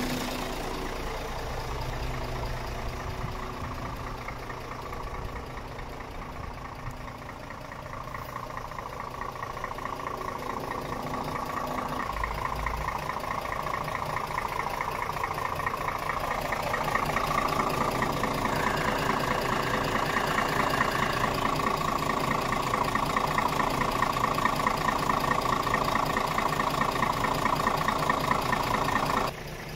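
Scania R500 truck's diesel engine idling steadily, heard close up; it grows louder as the microphone comes near the engine over the second half.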